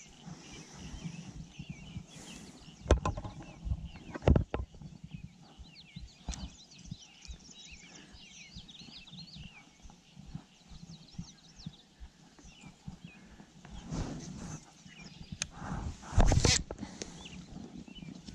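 Birds chirping repeatedly, with a few sharp knocks and bumps, the loudest one near the end.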